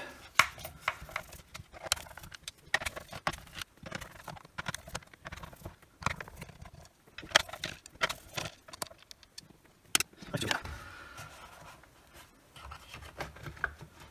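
Hand Torx screwdriver backing screws out of a cordless circular saw's plastic housing: irregular small clicks, ticks and scrapes of the driver and screws against plastic, with one louder click about ten seconds in and quieter handling of the housing near the end.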